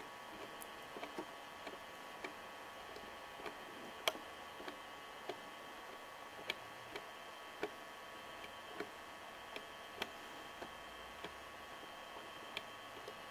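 Faint, evenly spaced ticks, about one every 0.6 s, over a steady low hum, the loudest tick about four seconds in.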